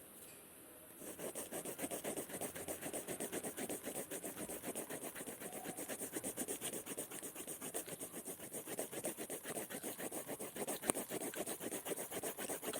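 Scribbling on paper: rapid back-and-forth scratching strokes of a pen or pencil tip, starting about a second in and keeping up a fast, even rhythm.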